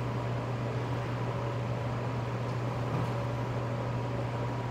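Steady low mechanical hum with a faint steady higher tone, like a ventilation fan or air-handling unit running.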